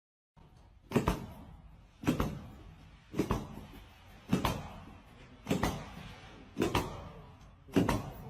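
A series of heavy knocks, one a little more than every second, about seven in all. Each knock fades out over the following second, and the last two come as quick double strikes.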